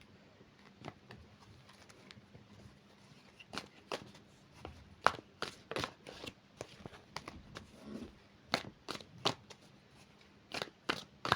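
Tarot cards being shuffled and handled: quiet at first, then from a few seconds in a run of irregular, sharp card snaps and slaps.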